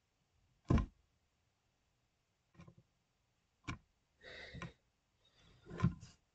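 A few short, separate knocks and clicks close to the microphone, four or five of them spread over about six seconds, the loudest about a second in and another near the end.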